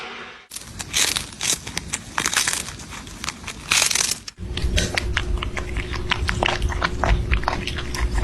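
Dense, irregular clicks and crackles, like crinkling or scrabbling. About four seconds in, the sound cuts to a steady low hum with a faint held tone, with clicks still going on over it.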